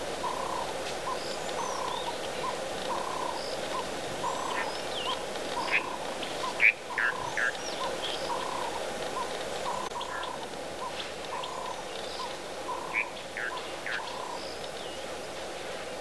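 Bush ambience: birds chirping, with a few sharper calls near the middle and again near the end, over a short call repeated about twice a second and a steady background hum.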